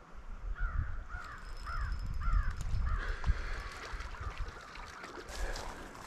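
A crow cawing about five times in quick succession, roughly half a second apart, over low rumbling noise on the microphone.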